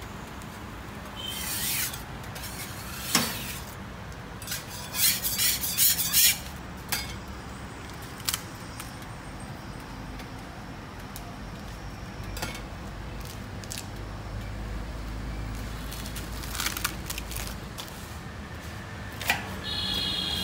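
Metal spatula scraping and knocking on a jianbing griddle as the egg crepe is folded, in scattered sharp scrapes with a dense run of them about five seconds in, over a low steady hum.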